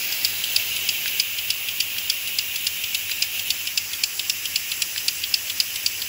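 A Stuart model boiler feed pump running off its hose supply: a steady hiss of exhaust with an even, sharp click a few times a second as the small piston strokes.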